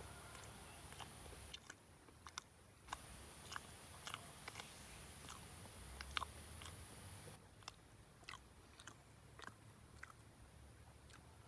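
Faint crunchy biting and chewing of food, with irregular sharp clicks a few times a second.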